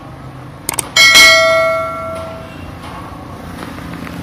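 A single clang of struck metal about a second in, ringing like a bell with several tones and dying away over about a second and a half, just after a couple of short clicks.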